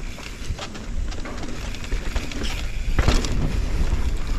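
Mountain bike ridden on a dirt trail, heard from a camera on the rider: wind buffeting the microphone in a steady low rumble, tyre and frame rattle with scattered clicks, and a hard knock about three seconds in.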